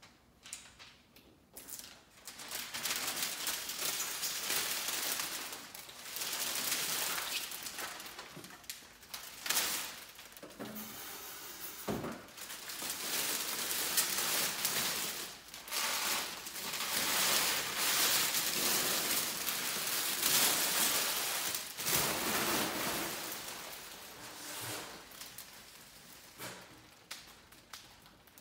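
Plastic window-film liner rustling and crinkling as it is peeled off and bunched up, in long noisy stretches with short pauses, starting about two seconds in.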